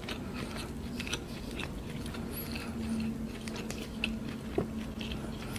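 A person chewing a mouthful of fried chicken close to the microphone, with soft, scattered mouth clicks.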